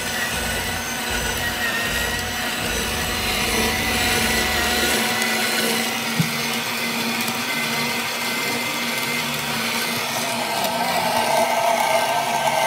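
Amzchef slow juicer running steadily, its auger grinding and crushing whole apples.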